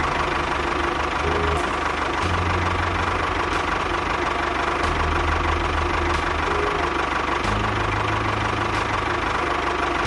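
Tractor engine running steadily with a fast low chugging beat, its pitch stepping slightly up and down a few times.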